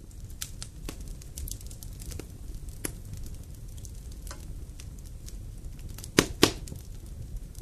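Campfire crackling, with irregular sharp snaps of burning wood over a steady low rumble, and two loud pops in quick succession about six seconds in.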